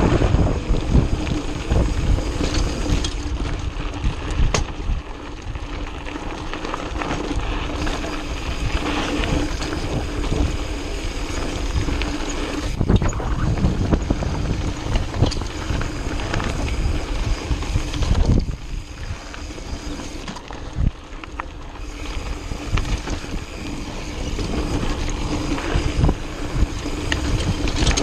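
Mountain bike descending a dirt trail: wind buffeting the microphone over tyres rolling on dirt, with frequent short knocks and rattles as the bike goes over bumps. The noise eases for a few seconds about two-thirds of the way through.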